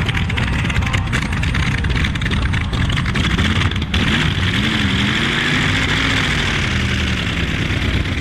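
Light Modified pulling tractor's racing engine running at low revs. Its pitch wavers up and down for a few seconds in the middle.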